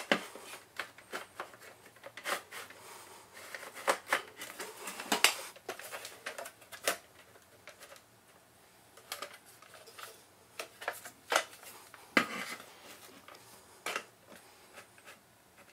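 Irregular clicks, knocks and scrapes of a metal-cased DVD drive being handled and slid into an aluminium drive bracket, with a quieter spell about seven to nine seconds in.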